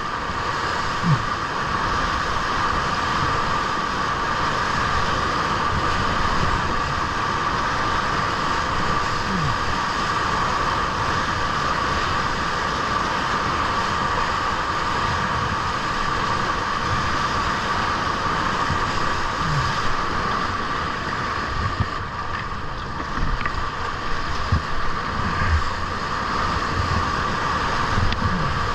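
Steady, loud rush of whitewater from a standing river wave, heard up close from a kayak surfing on it. Near the end come a few brief low knocks and splashes.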